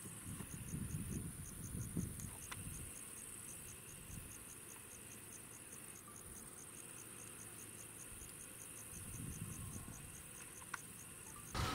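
Crickets chirping in a steady rhythm, about four chirps a second, with a low rumble on the microphone near the start and again near the end. The chirping cuts off abruptly just before the end.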